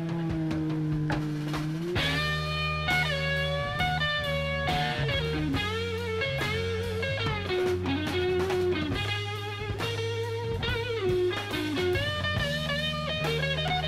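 Background music: a blues-rock electric guitar solo with bent, wavering notes over bass and drums.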